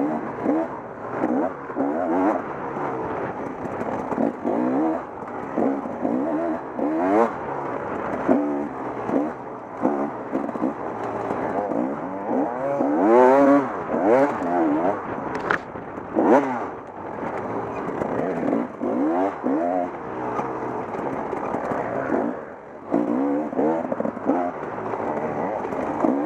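Off-road dirt bike engine revving hard through a harescramble course, its pitch climbing and dropping back every second or two as the throttle and gears are worked, with a sharp knock about halfway through.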